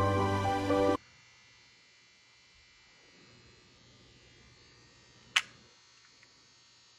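Music cuts off abruptly about a second in. After a near-silent pause, a disposable film camera's shutter clicks once, sharply.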